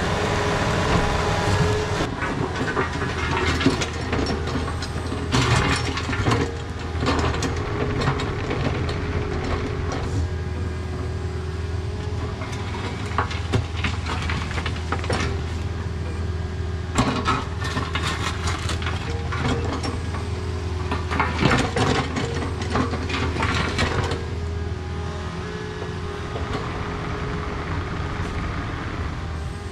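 Takeuchi mini excavator's diesel engine running steadily. Over it come repeated metallic clanks, rattles and scraping from the tracks and bucket as the machine travels and works the dirt while backfilling a ditch.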